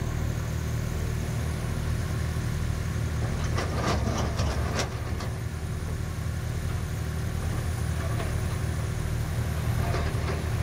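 Heavy diesel engines of a Komatsu hydraulic excavator and an articulated dump truck running steadily. A short spell of knocks and clatter comes about four seconds in, as the excavator bucket digs into the rock pile.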